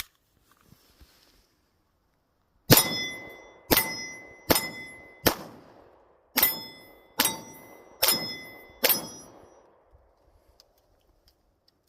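Hi-Point C9 9mm pistol fired eight times, in two strings of four shots just under a second apart. Each shot is followed by a short metallic ring from a steel target being hit.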